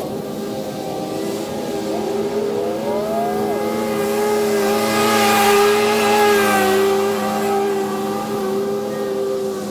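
Engines running steadily: a zero-turn mower cutting grass together with traffic on the road, one vehicle's engine rising in pitch about two seconds in, and the sound swelling to its loudest around the middle.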